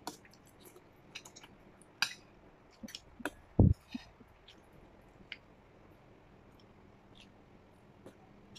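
Eating sounds: scattered small clicks and smacks of chewing, and chopsticks and a spoon tapping stainless steel bowls. A single dull thump just before halfway is the loudest sound.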